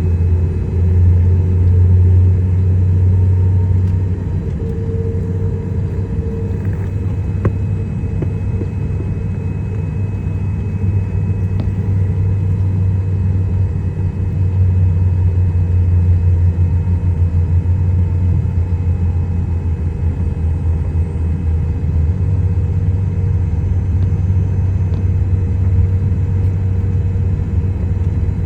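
Boeing 777 jet engines running with a steady low rumble and a faint steady whine above it, swelling slightly about halfway through.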